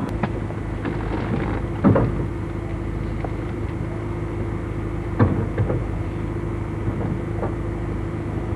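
A vehicle's engine droning steadily, heard from inside the cabin while driving, with a few knocks and rattles at about two seconds and again around five seconds in.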